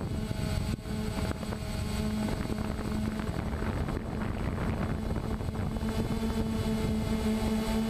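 DJI Phantom quadcopter's four brushless motors and propellers humming steadily in flight, heard through the GoPro hung beneath it, over a rush of air. The hum grows a little stronger and steadier about six seconds in.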